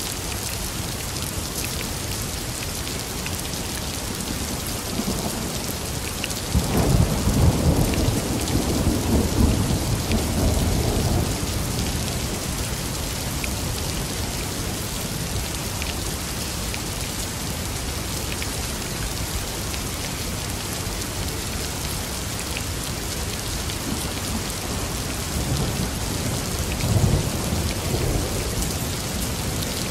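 Thunderstorm: steady rain falling, with a rolling rumble of thunder starting about six seconds in and lasting about five seconds, and a shorter, fainter rumble near the end.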